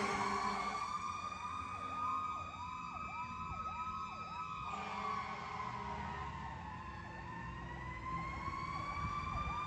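Sirens of a 2018 Seagrave Marauder fire engine responding as it drives away: a steady siren tone that sags in pitch midway and climbs back, with a fast yelping siren over it for the first few seconds and again near the end.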